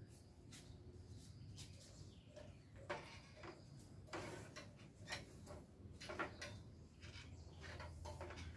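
Faint, irregular knocks and creaks from a ladder propped against a coconut palm as a man climbs its rungs.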